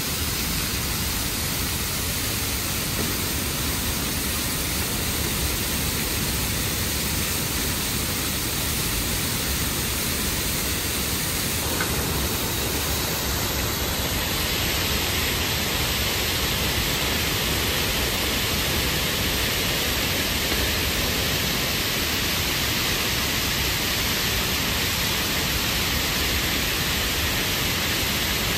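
Water rushing through an opened dam gate, a loud, steady rush of noise; the higher hiss in it grows stronger about halfway through.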